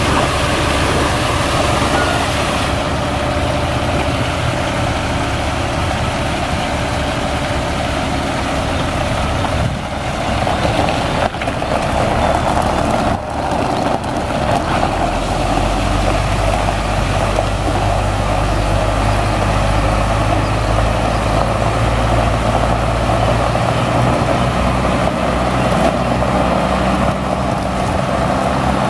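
Sterling L8500 water truck's Caterpillar C7 inline-six diesel engine running steadily, with a broad hiss of water spraying from the rear spray bar. The engine note gets deeper and stronger about halfway through.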